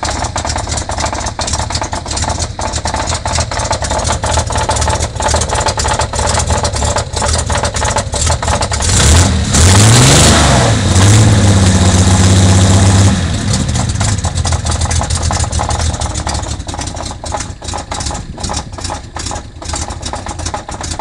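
Datsun L28 inline-six running with a rapid clattering tick through it, revved up about nine seconds in, held higher for a few seconds, then let back down to idle. The tick is the unidentified engine noise the owners plan to find on teardown, and the reason the motor is being replaced.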